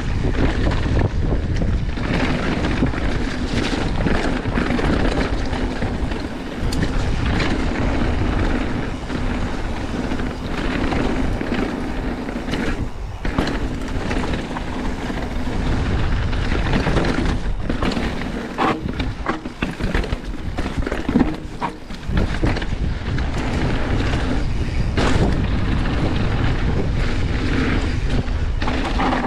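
Wind buffeting the microphone of a bike-mounted camera on a descending mountain bike, over the rolling noise of knobby tyres on a dirt and gravel trail, with frequent knocks and rattles from the bike as it goes over bumps.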